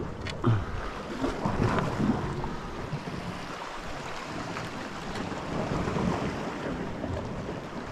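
Wind buffeting the microphone over the wash of sea water around a small boat, with a few brief bumps early on.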